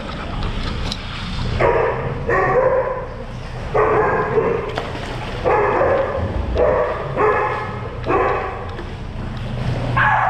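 A dog barking over and over, about nine times at uneven intervals, each bark lasting about half a second.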